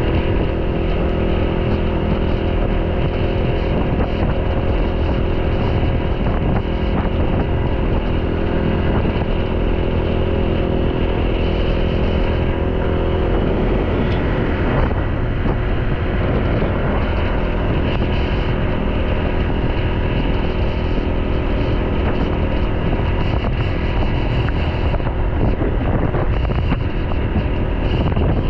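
Motorbike on the move: wind rumbling on the microphone over the steady hum of the engine. The engine's pitch shifts and wavers about halfway through.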